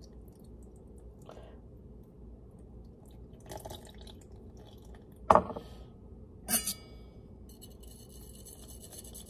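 Lemon juice dripping and trickling through a small kitchen sieve into a glass mixing bowl. There are a few light knocks, a sharp knock about five seconds in (the loudest sound), and another about a second later.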